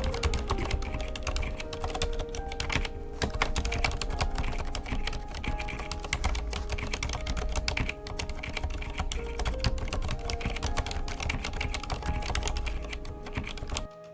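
Fast, continuous typing on a Ducky One 2 TKL mechanical keyboard with Cherry MX Silent Red switches: a dense stream of key strokes, damped by the switches' rubber pads at the bottom and top of travel. The typing stops just before the end.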